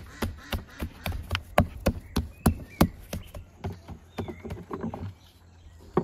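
Hands patting and pressing a round of soft dough on a floured wooden board: a run of soft slaps, about three a second, easing off after about five seconds.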